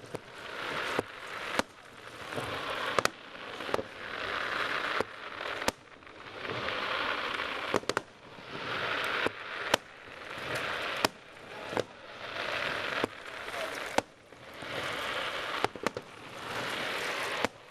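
Aerial fireworks display: a quick run of sharp bangs at the start, then a repeating cycle about every two seconds of a crackling hiss that builds and ends in a sharp bang.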